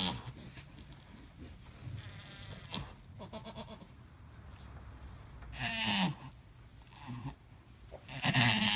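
Alpine goat doe in labour bleating, a string of strained calls, faint at first, with the loudest about six seconds in and again near the end.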